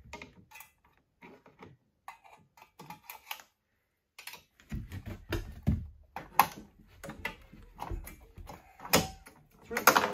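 Irregular metal clicks, scrapes and clanks of a hooked spring-puller tool working on the exhaust springs that hold a snowmobile muffler, with two louder clanks near the end.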